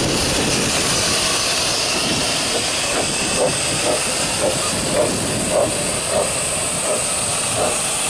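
A 15-inch-gauge steam train pulling slowly out, with a steady hiss of steam. As the coaches roll past they give a run of soft, evenly spaced clacks, nearly two a second.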